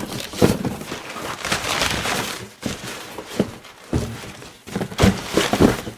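Cardboard sheets being handled and pushed into a large cardboard box: irregular thuds and knocks of card against card, with scraping and rustling between them.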